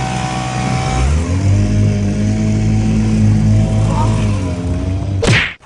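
Small outboard motor on an inflatable dinghy running under way, its pitch rising as it is given throttle about a second in and easing back near the end. A brief loud whoosh comes just before the sound cuts off.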